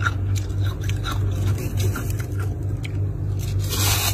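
Close-up crunching bites and chewing of packed freezer frost ("snow"): many short crisp crunches over a steady low hum. Near the end comes a longer, louder scrape.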